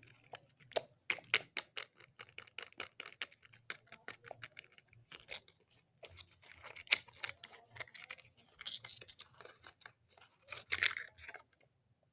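Close-up handling noise: a long run of light, irregular clicks and taps, with bursts of scratchy rustling about two-thirds of the way in and again near the end, before it stops.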